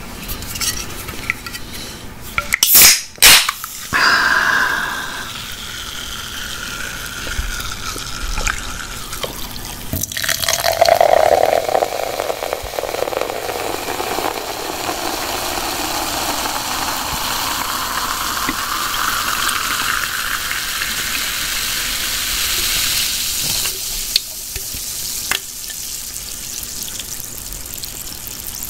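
A few loud knocks and handling sounds close to the microphone, then water poured into a glass for over ten seconds, its pitch rising steadily as the glass fills.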